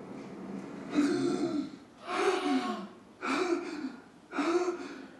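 A man gasping hard for air four times, heavy voiced gasps about a second apart, as on suddenly waking and coming back to life.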